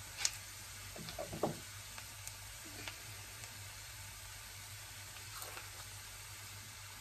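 Diced onion frying in hot oil in a small pan, a steady sizzle, with a few brief sharp clicks in the first second and a half.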